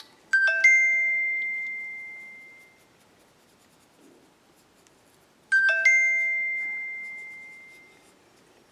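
A chime sounds twice, about five seconds apart: each time a quick run of three ringing notes, the last note ringing on and fading away over about two seconds.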